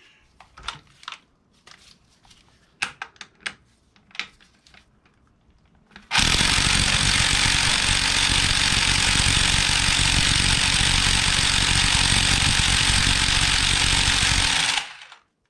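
A few light clicks of a tool being set in place, then about a second in the middle an impact wrench starts hammering hard and steadily for about eight and a half seconds on the stuck harmonic balancer bolt of an LQ4 6.0 V8, then stops suddenly.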